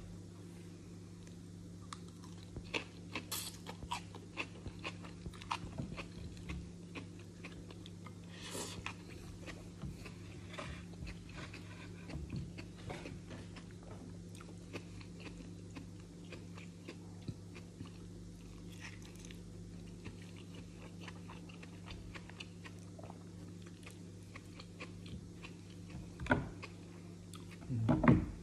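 A person chewing food close to the microphone, with frequent small crunches and mouth clicks over a steady low hum. A few louder knocks near the end.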